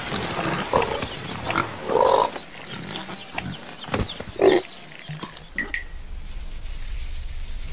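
Pigs grunting, several short calls in the first few seconds. After about five and a half seconds they give way to a quieter low rumble.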